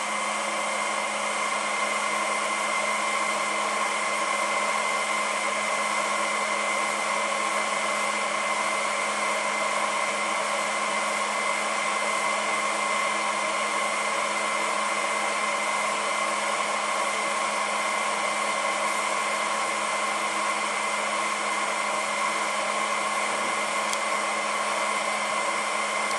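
Hot-air heater blower of an LY 5200 mobile BGA rework station running steadily during an automatic reflow heating profile: a constant rush of air with a low hum and a faint high whine.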